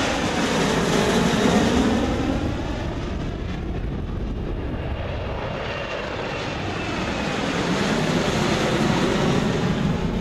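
Boeing 737 jetliner's turbofan engines at takeoff power as it climbs out overhead: a steady jet roar with a whooshing sweep in its pitch. The roar swells about a second in, eases in the middle, and swells again near the end.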